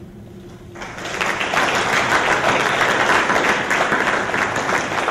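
Audience applauding a called name, starting about a second in and holding steady.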